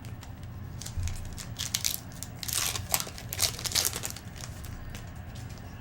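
Trading-card pack wrapper being torn open and crinkled by hand, a run of crackling tears and crumples lasting about three seconds.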